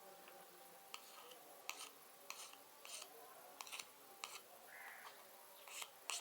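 Faint, irregular small clicks and scrapes, about one every half second to second, from the flux paste tin and syringe being handled as the soldering paste is worked into the syringe.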